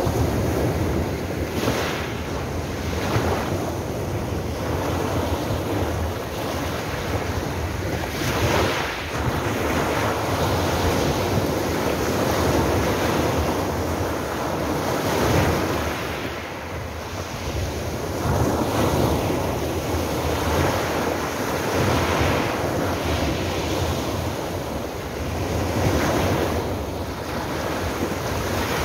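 Small sea waves breaking and washing up over a pebble beach, the surf swelling and easing every few seconds, with a brighter hiss each time a wave runs up over the stones.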